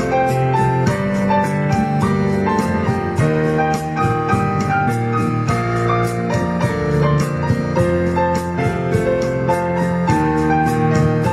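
Background piano music, notes played at an even pace with a steady chordal accompaniment.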